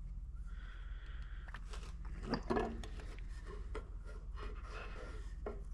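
Light metal clicks and scrapes as the torque converter clutch solenoid is worked out of a 4L80E transmission valve body, with a louder cluster of clicks about two and a half seconds in, over a steady low hum.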